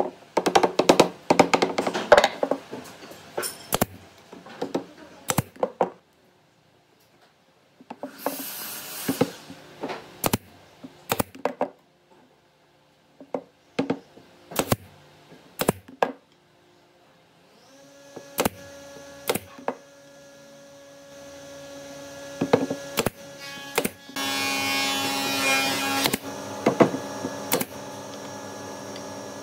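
Woodworking shop sounds: a run of sharp knocks and taps, then a power tool motor starts about eighteen seconds in and keeps running with a steady whine, louder from about twenty-four seconds.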